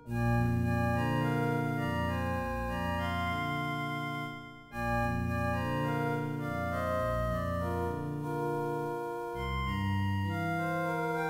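Two digital keyboards played as a duo in an untempered microtonal tuning: sustained chords of steady tones that change every second or so, broken by a brief pause about four and a half seconds in.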